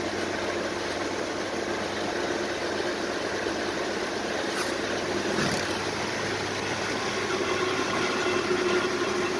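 Steady drone of a 1941 Dodge WC truck with a 5.7 Hemi V8 swap, driving at a steady speed, heard from inside the cab with road and wind noise.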